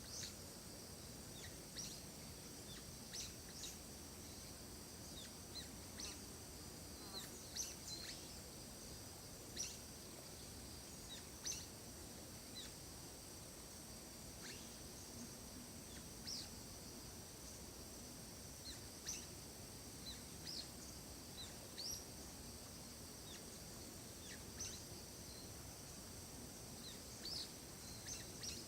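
Forest ambience: birds giving short, sharp chirps that sweep downward, one every second or two, over a steady high-pitched hum.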